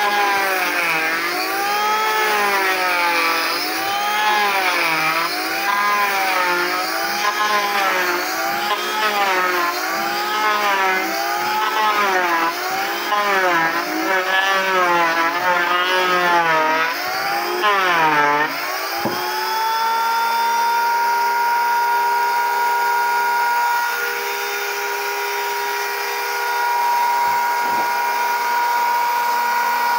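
Electric hand planer shaving a wooden door plank. Its motor whine rises and falls in pitch about once a second as it is pushed back and forth through the wood. After a sharp dip around 18 seconds in, it holds a steady whine.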